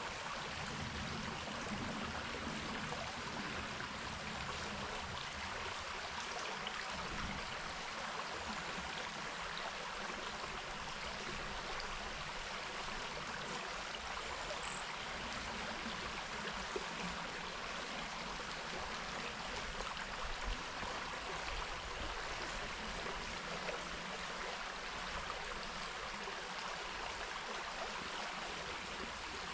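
River water flowing steadily, a constant rushing hiss, with one brief high chirp about halfway through.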